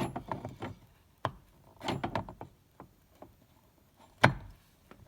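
Metal steering-wheel hub adapter being fitted onto the steering column shaft: a run of small clicks and knocks, then one sharp knock about four seconds in.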